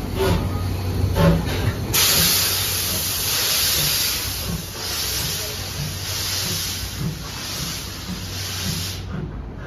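C11 steam tank locomotive pulling away with its train: a loud hiss of venting steam starts about two seconds in, swells and dips, and cuts off suddenly near the end, over the low rumble of the train rolling past.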